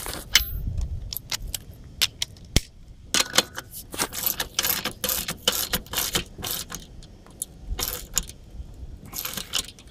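Bicycle freewheel working as a ratchet wrench on a nut: its pawls click in quick irregular runs as the handle is swung back and forth, with the densest clicking in the middle and again near the end.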